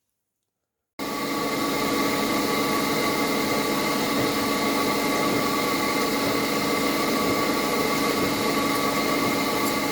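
Metalworking machine tool running steadily while the camshaft bearing caps and bed of a ZMZ 405 cylinder head are machined: a constant whine with a hum beneath, starting abruptly about a second in after silence.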